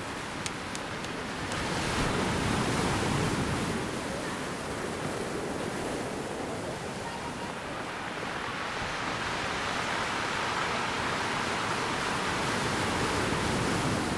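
A steady rushing noise, swelling a couple of seconds in and again later on, with a few faint clicks near the start.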